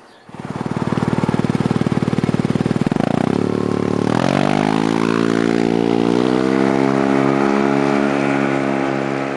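An engine running with a rapid, even pulse that revs up in pitch about three to four seconds in, then holds at a steady higher speed.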